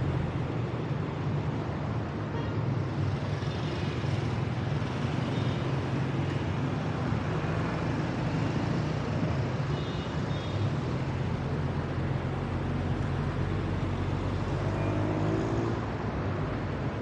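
Steady road noise from cars moving slowly in congested traffic, a low engine hum under even tyre noise.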